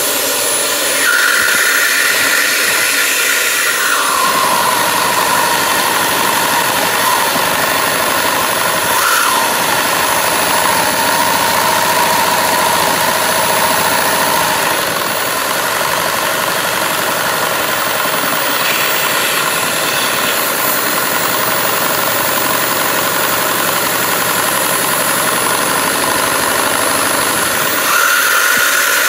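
Handheld vacuum cleaner's motor running loud and steady, its air driving a Lego two-cylinder butterfly-valve engine. Its whine drops in pitch about four seconds in and rises again near the end.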